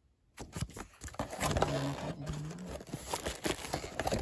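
Cardboard box packaging being handled and opened: rustling, scraping and light knocks of cardboard flaps and inserts, starting about half a second in.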